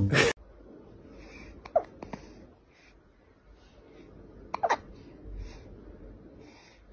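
Tabby kitten making soft, short puffs of breath about every half second, with a few tiny high squeaks falling in pitch around two seconds in and again near five seconds, after a brief loud burst at the very start.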